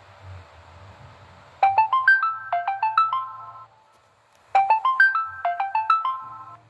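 A phone ringtone: a short melody of bright, bell-like notes, played twice with a pause of about a second between.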